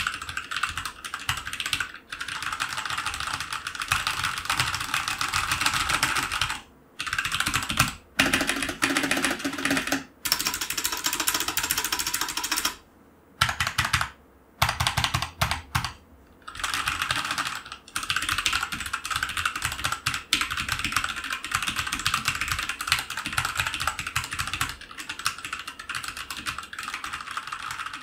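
Fast typing on a Sharkoon Skiller SGK30 full-size mechanical keyboard with Huano red linear switches (45 g): a dense stream of key clacks broken by a few short pauses. The larger keys with stabilizers sound rattly and not especially high-quality.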